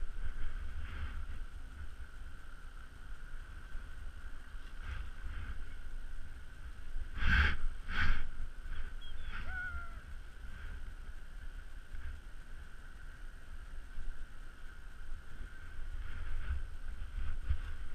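Wind rumbling on the microphone, with a faint steady whine. Two sharp knocks come about seven and eight seconds in, and a short falling chirp follows just after.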